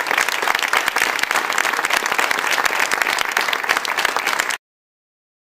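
Theatre audience applauding, many hands clapping densely, until the sound cuts off suddenly near the end.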